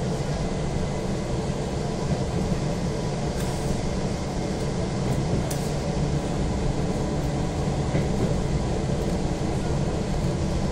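Izukyu 2100 series electric train running at speed, heard from inside the carriage: a steady low rumble of wheels on rails and running gear.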